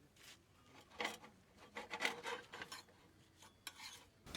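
A few irregular scraping and rubbing strokes, the loudest about one and two seconds in.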